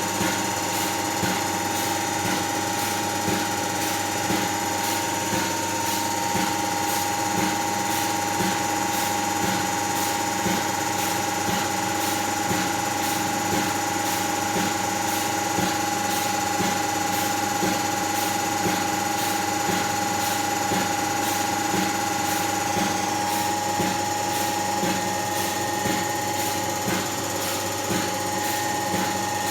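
Range Rover 3.6 TDV8 diesel V8 engine running with a steady, rhythmic knocking over an even mechanical tone. It is the uneven running and knock the owner is trying to trace.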